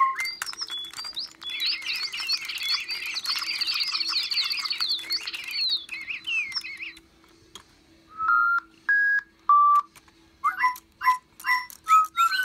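DigiBird electronic toy birds chirping together in a dense chorus of quick chirps, which stops about seven seconds in. After a short pause come a few single held whistled notes, then quick falling chirps.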